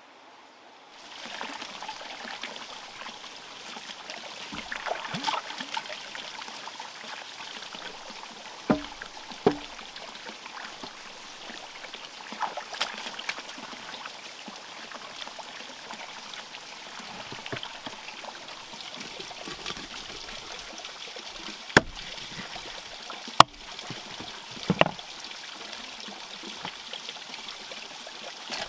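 Water trickling steadily, with scattered sharp knocks; two loud ones come about two-thirds of the way in.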